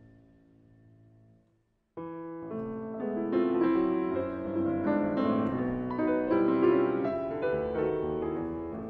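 Solo Steinway grand piano playing classical music. A soft chord dies away into a brief silence, then about two seconds in a loud new passage begins and carries on in fast, dense notes.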